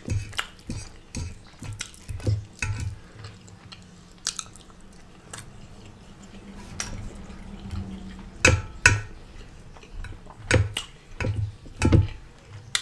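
Fork clinking and scraping on a plate, with close-miked chewing and mouth sounds of eating scrambled eggs, scrapple and home fries. Irregular sharp clicks throughout, the loudest a few near the end.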